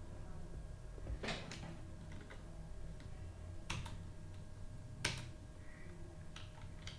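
A handful of scattered clicks from a computer keyboard, the three loudest about one, three and a half, and five seconds in, over a faint steady hum.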